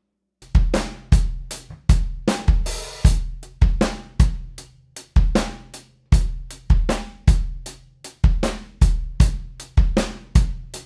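Playback of a live-recorded drum kit: a steady beat of kick and snare with hi-hat and cymbals, starting about half a second in. The snare is blended with a triggered replacement sample from XLN Audio's Addictive Trigger.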